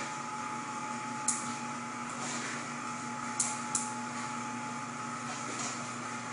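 A steady mechanical hum holding two fixed tones, with a few short sharp clicks about a second in and twice more around the middle.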